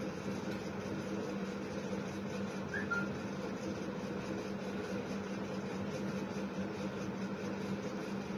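Diesel locomotive engine running steadily at idle, a constant low hum, with one brief high chirp about three seconds in.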